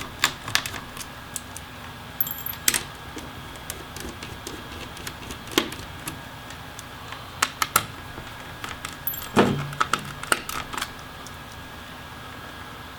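Scattered small clicks and metallic clinks of a Phillips screwdriver and tiny screws as the battery screws are taken out of the laptop's chassis, a few clinks ringing briefly.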